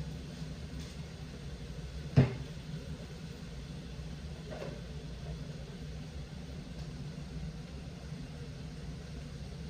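A single sharp knock about two seconds in, with a fainter click a couple of seconds later, over a steady low hum.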